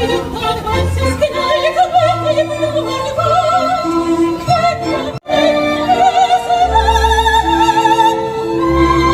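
Soprano singing opera with strong vibrato over orchestral accompaniment with strings. The sound cuts out for a split second about five seconds in, then the singing and orchestra carry on.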